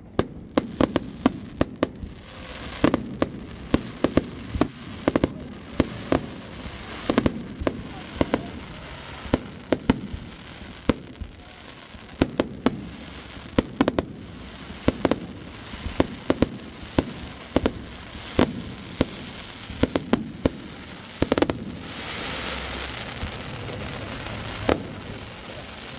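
Fireworks display: an irregular run of sharp bangs from shells bursting, one after another and sometimes several a second. A few seconds of crackling come near the end.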